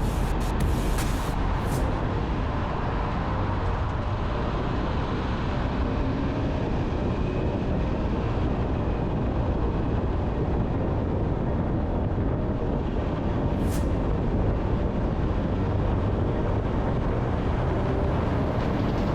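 Steady road and tyre noise with wind rumble from a 2022 Honda Civic Sport being driven, heard close to its front wheel, with a few sharp ticks near the start and one about two-thirds of the way through.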